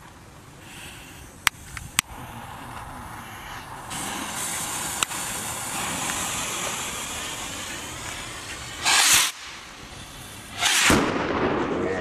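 Fuses of Broekhoff Signalos Trueno y Luz signal rockets hissing steadily as they burn, then two rockets launching with short loud whooshes under two seconds apart. Two sharp clicks come a few seconds before the fuse hiss.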